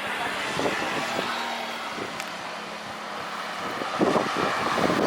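Steady rushing engine noise that gets louder about four seconds in, with wind bumping the microphone.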